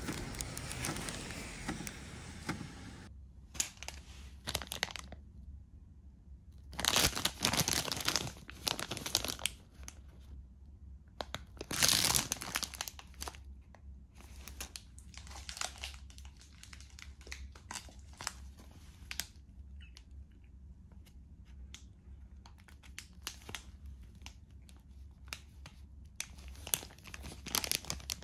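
Clear plastic pastry wrapper crinkling and tearing in irregular handfuls as it is pulled open, with the loudest crackling bursts about 7 to 9 seconds in and around 12 seconds.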